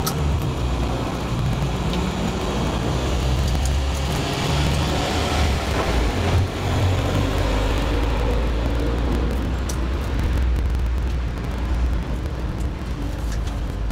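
Street traffic noise: a steady low rumble of road vehicles, swelling about four to six seconds in as a vehicle passes close.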